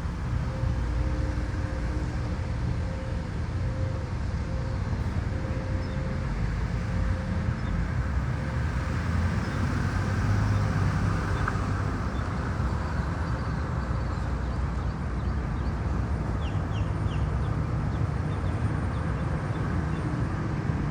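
Steady low rumbling outdoor noise with a few faint, short bird chirps a little past the middle.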